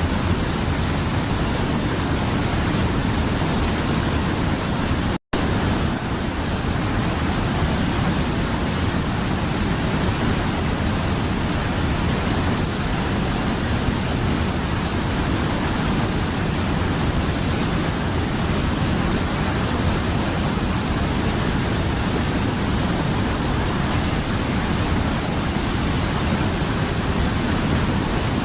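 Mountain river flowing, a steady dense rush of water. The sound drops out for an instant about five seconds in.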